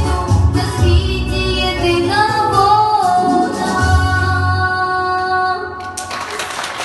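A young girl singing a Ukrainian song into a microphone over a backing track with a steady bass beat, holding a long wavering note near the end. About six seconds in, the music stops suddenly and applause begins.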